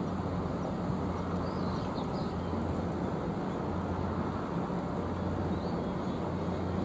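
Steady outdoor rumble with a constant low hum, and a few faint high chirps about two seconds in and again near the end.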